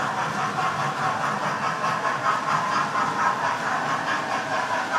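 Model railway trains running: a steady mechanical whir that pulses a few times a second.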